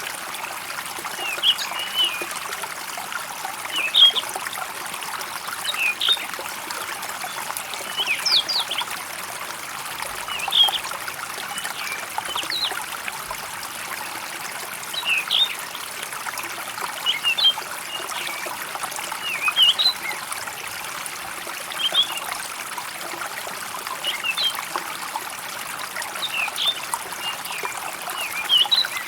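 A steady trickling stream, with short high bird chirps repeating every second or two over it.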